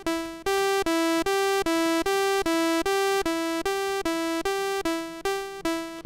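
Commodore 64 SID chip sawtooth-wave synth tone playing a looped two-note pattern, G and E alternating about two and a half notes a second. The notes fade quickly at first, then from about half a second in are held at an even volume, slightly quieter after about three seconds, and fade again near the end: the sustain level of the envelope being changed while the pattern plays.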